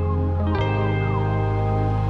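Background music: sustained chords over a steady deep bass note, with the chord changing about half a second in and a few short sliding tones above.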